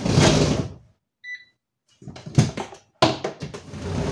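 Kitchen handling noise: a rustling clatter, then a single short electronic beep from the air fryer a little over a second in, followed by more clattering and rustling as things are handled.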